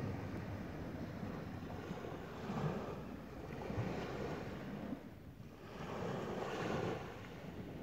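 Sea waves washing on a beach, with wind rumbling on the microphone. The wash swells and eases every couple of seconds, with a brief lull about five seconds in.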